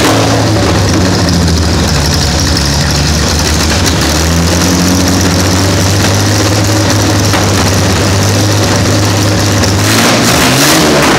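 Jaguar 4.2-litre DOHC straight-six, converted to carburettors, running at a fast idle with small changes in speed and a rev rising near the end. It is running unevenly, which the mechanics put down to a float stuck open in one carburettor, flooding it with too much fuel.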